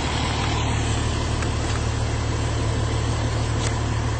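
A car engine idling steadily, heard as a low, even hum.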